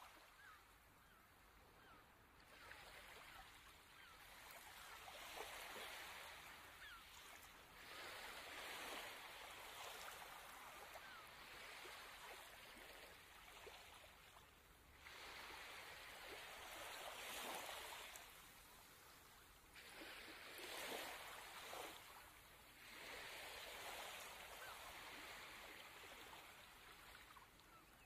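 Small waves lapping faintly on a sandy shore. Each wash swells and fades over a couple of seconds, a few seconds apart, with a fine fizzing crackle.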